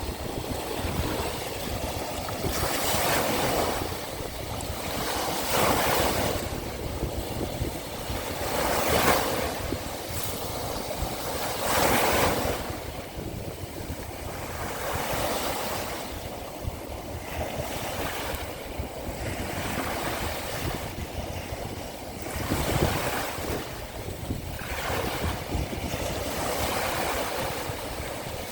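Small waves of the Sea of Azov breaking and washing up the shore, each swelling and falling away every few seconds, with wind buffeting the microphone.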